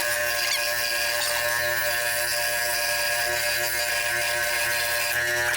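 Power saw running steadily with an even whine, cutting out wooden knife-handle scales.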